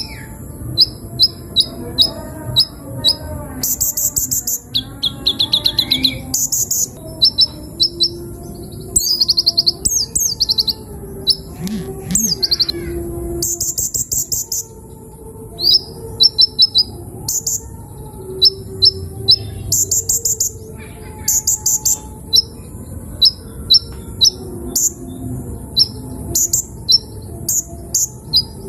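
Sunbird (kolibri ninja) giving short, high chirps in quick runs of several a second, broken now and then by louder, buzzy trilled bursts. These are sparse calls rather than full song.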